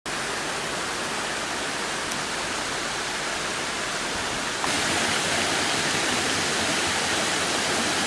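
Water of a forest stream rushing over rock terraces and small rapids: a steady, even hiss that becomes louder about halfway through.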